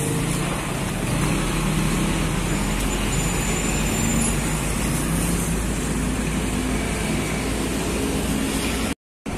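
Diesel engine of a Volvo FM12 heavy tractor unit running steadily under load as it pulls a transformer-laden low-bed trailer away, with road traffic around it. The sound drops out briefly near the end.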